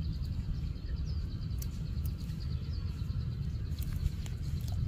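Outdoor rural ambience: a steady low rumble with a rapid, regular run of thin, high chirps, several a second, from a small creature in the orchard.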